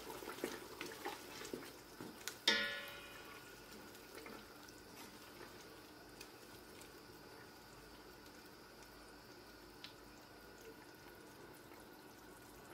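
Wooden spoon stirring a thick tomato-and-pepper mixture in a stainless steel pot, with soft wet clicks and one sharp knock of the spoon against the pot about two and a half seconds in that rings briefly. After that, only a faint steady hiss.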